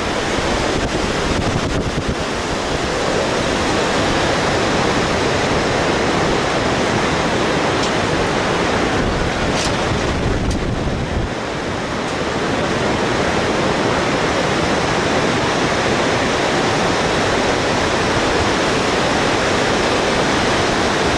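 Steady rush of a fast whitewater river, mixed with wind buffeting the microphone.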